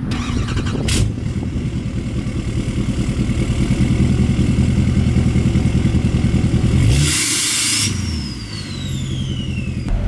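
Tuned and deleted L5P Duramax 6.6-litre V8 turbodiesel with a 5-inch straight-pipe exhaust, in a 2020 Chevrolet Silverado High Country, revved and held with a pulsing exhaust note. About seven seconds in it is let off with a short rush of air and a turbo whistle that falls in pitch as the turbo spools down; the truck's engine-bay piping makes the whistle prominent.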